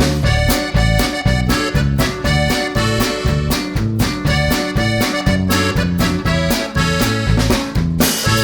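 Background music led by an accordion over a steady, bouncy bass line.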